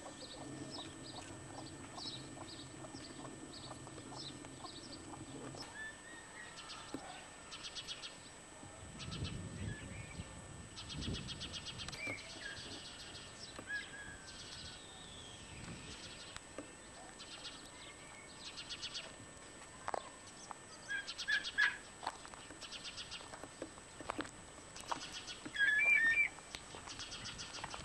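Birds chirping in short, rapid bursts over and over, with a few louder, clearer bird calls about three-quarters of the way through and again near the end.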